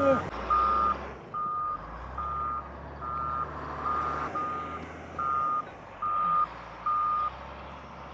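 Backup alarm on a snow-clearing machine (wheel loader or skid steer) beeping about ten times at one steady pitch, roughly one beep a second, and stopping about seven seconds in: the machine is reversing. A low diesel engine rumble runs underneath.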